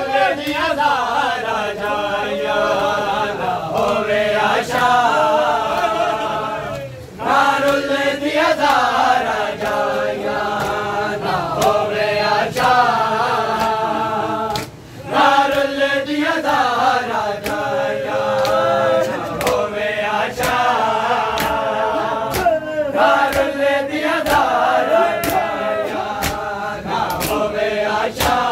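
A large group of men chanting a mourning lament in unison, in repeated phrases with brief breaks between them. Sharp slaps of hands striking bare chests (matam) sound through the chanting.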